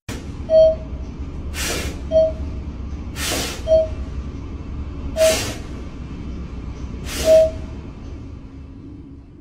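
Elevator car running with a steady low rumble and a short electronic beep about every one and a half seconds, five in all. Between the beeps come four loud hissing sniffs from a dog with its nose pressed to the gap between the elevator doors.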